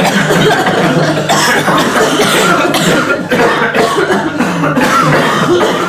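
Several people coughing loudly, the coughs overlapping densely with no pause.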